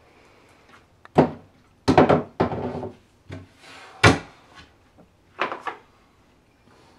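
A series of wooden knocks and thuds from things being handled around kitchen cabinets. The loudest come about two seconds in and about four seconds in, with a cluster of lighter knocks a second later.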